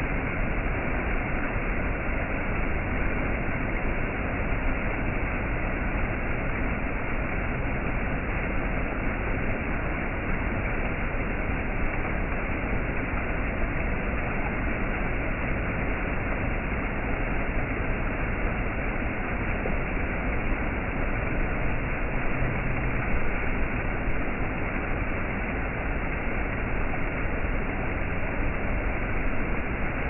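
Small stream cascades rushing over low rock ledges: a steady, even rush and splash of water.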